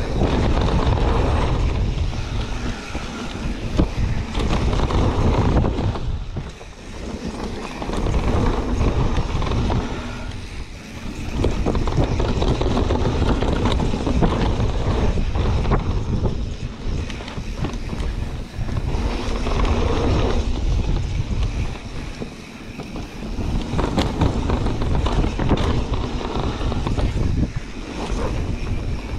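Wind rushing over an action camera's microphone on a moving mountain bike, mixed with the rumble and rattle of the bike over a leaf-covered dirt trail. The noise eases off briefly about three times, with a few sharp knocks.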